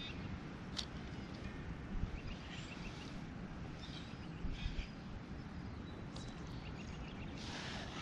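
Wind rumbling steadily on the microphone, with a few light clicks and faint bird chirps around the middle.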